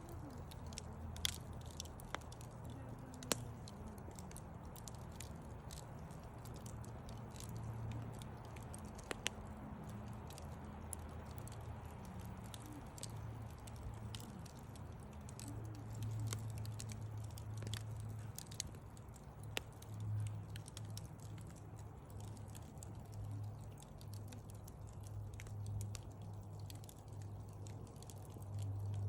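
Wood fire burning in a fireplace, crackling with scattered sharp pops, several in the first few seconds and a few later, over a low rumble that swells now and then.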